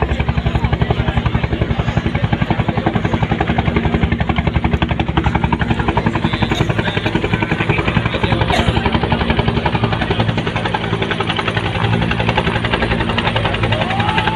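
Helicopter running steadily, its rotor beating in a fast, even pulse over a steady engine tone.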